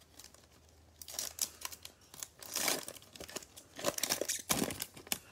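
Cellophane wrapper of a football trading-card cello pack crinkling and tearing as it is ripped open by hand. The crackling comes in short bursts, starting about a second in.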